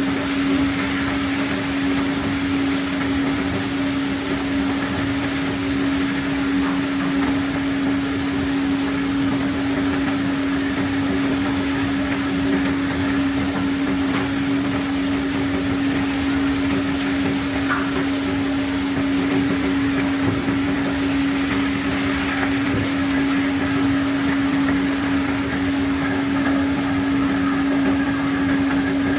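Machinery on a sand ship unloading pebbles, running steadily with one strong constant hum over an even mechanical noise.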